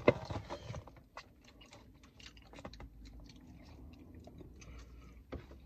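A person chewing fried chicken: a run of small, irregular wet clicks and crunches of a mouth eating, with a sharper click right at the start.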